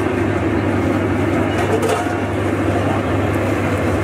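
Steady, loud street background noise of traffic and crowd, with a constant low hum running under it.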